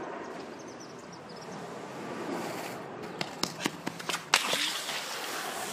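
Skateboard wheels rolling on asphalt as a rider comes down the street and passes close by. There are several sharp clacks about three to four seconds in, then a louder rush of rolling noise.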